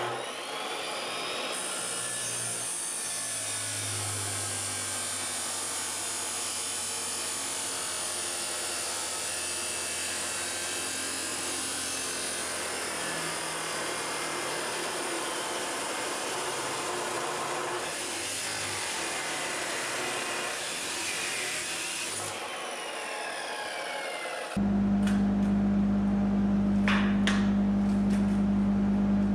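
Abrasive chop saw spinning up and grinding through steel tubing, a steady harsh whine that winds down in pitch a little after twenty seconds in. Near the end a louder steady low hum begins.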